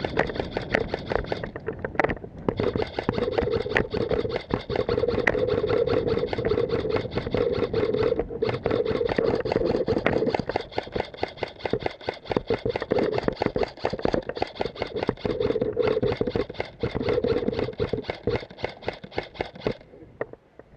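Airsoft electric gun (AEG) firing long full-auto bursts: a fast rattle of shots over a steady motor whine. It starts about two seconds in, breaks off briefly a few times, and stops just before the end.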